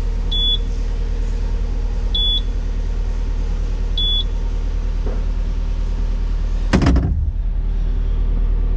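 Kubota SVL75-3 track loader's turbo-diesel engine idling steadily just after start-up with turbo protection on, while a warning beeper gives short beeps about every two seconds, stopping about four seconds in. A single sharp thump comes a little before seven seconds in.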